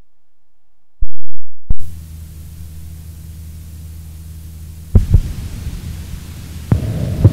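Electrical mains hum, a steady low buzz with overtones, that comes in after two loud clicks about a second in. Sharper pops follow at about five seconds and near the end, and the hum turns rougher and louder, like a crackling audio line.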